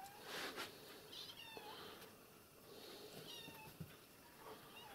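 Young kittens mewing faintly: short high-pitched calls that fall in pitch, in two small clusters about two seconds apart.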